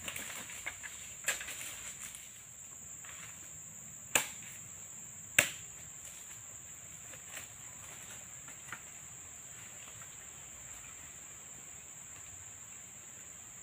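Insects in the plantation keep up a steady high-pitched drone, with a few sharp knocks from the harvesting work, the loudest about five seconds in.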